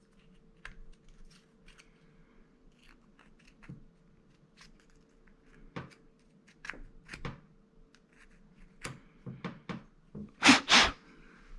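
Small metal clicks and scrapes as a tool is pushed and worked into an old Ronson lighter's clogged flint tube, with two louder scrapes close together near the end. A faint steady hum runs underneath.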